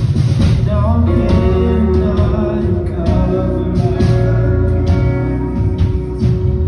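A worship band playing a song: singers over acoustic guitar and a full band with a heavy, steady bass.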